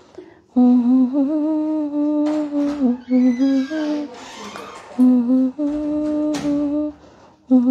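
A woman humming a slow tune in long held notes, with a brief rustle midway.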